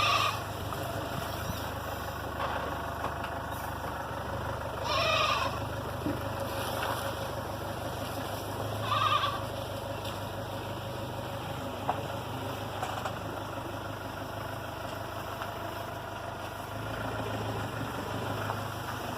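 A goat bleating three times, a few seconds apart, over the steady low hum of an idling engine.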